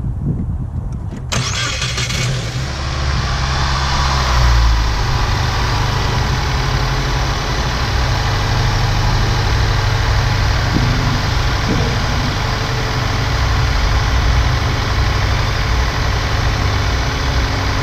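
A 2019 Subaru WRX's 2.0-litre turbocharged flat-four is started after a fresh oil fill, to circulate the new oil. There is a short crank, the engine catches about a second in and comes up on a quick rise, then it settles into a steady idle.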